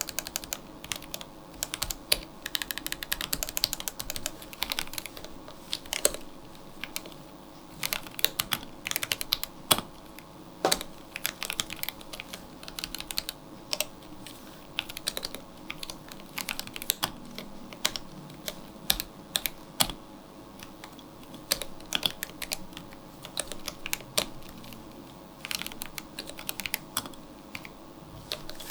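Typing on a My Neighbour MYNK65 65% mechanical keyboard, gasket-mounted with an acrylic case, polycarbonate plate and PBT keycaps: quick, irregular runs of key clacks broken by short pauses, with some strokes louder than the rest.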